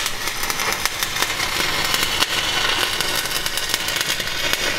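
Stick (shielded metal arc) welding with a 6010 rod, tacking small steel tabs on: the arc gives a steady, loud crackle and sizzle, thick with sharp pops.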